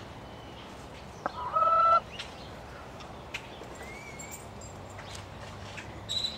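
A hen gives one short, loud call about a second and a half in, just after a sharp click; fainter short chirps follow later.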